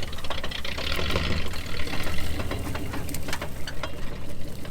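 A vehicle engine running steadily, with a scatter of sharp clicks about two to four seconds in.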